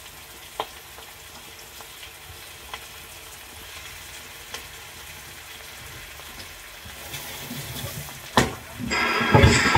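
Chunks of raw beef sizzling in hot oil in a frying pan as they are dropped in, a steady quiet hiss with small ticks as pieces land. Near the end there is a sharp knock, then louder music and voice come up.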